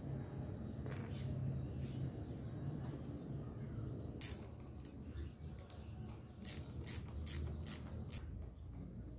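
Ratchet wrench and metal tools clicking and clinking while the motorcycle's front sprocket and its cover are put back on: a scattered run of sharp clicks in the second half over a faint low hum.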